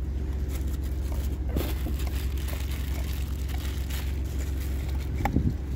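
Car engine idling with a steady low hum, with a couple of faint short sounds over it.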